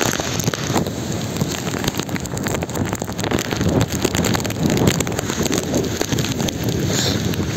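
Strong typhoon wind in heavy rain: a steady, rough rush with the gusts buffeting the microphone.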